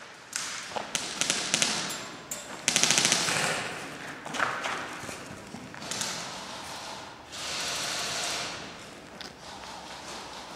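Airsoft guns firing in rapid automatic bursts, each a fast string of clicking shots, the longest about three seconds in, with scattered knocks between bursts.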